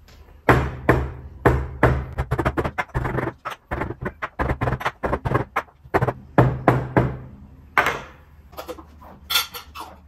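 A glass dessert jar of panna cotta topped with strawberry sauce is tapped repeatedly against a napkin-covered table, a rapid run of dull thunks several a second, to settle the sauce. The tapping stops about seven seconds in, and a few lighter knocks of glass on the table follow.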